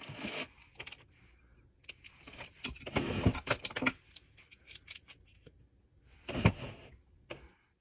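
Small plastic makeup items clicking and rattling as they are handled, with a mascara tube being twisted open and its wand pulled out. The handling comes in three bursts of clicks and rustling: at the start, about three seconds in (the longest), and about six and a half seconds in.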